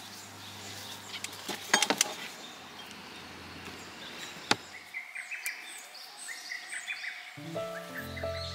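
Hard plastic clacks from a Coleman cooler's lid being opened and a glass beer bottle taken out. There is a cluster of sharp knocks about two seconds in and one more knock about four and a half seconds in, over outdoor ambience. Music starts near the end.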